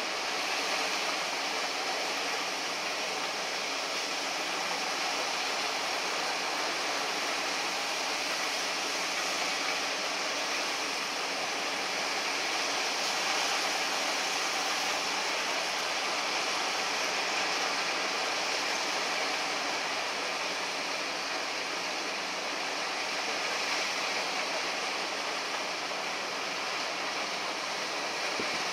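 Ice being loaded into a fishing boat's hold: ice tipped from a truck's raised container runs through a loading machine and chute, a steady rushing hiss over a faint machine hum.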